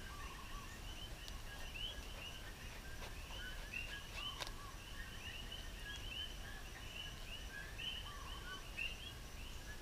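Small birds chirping in a steady chorus of short, quick chirps over a faint low outdoor rumble, with a couple of faint knocks.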